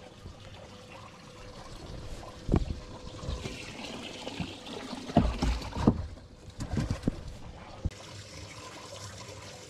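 Lake water lapping and trickling against a pontoon boat, with several dull knocks and bumps on the boat, the loudest a pair near the middle.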